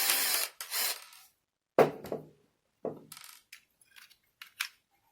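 Metal mortise lock parts being handled and fitted into a door: a brief rushing burst in the first second, then two knocks and a few light metallic clicks.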